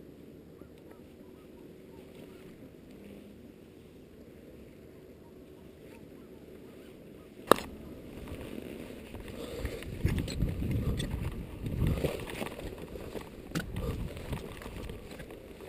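A climber moving over snowy rock: irregular rustling and scraping of clothing and gear against rock in the second half, after a faint steady wind hiss. One sharp click about seven seconds in.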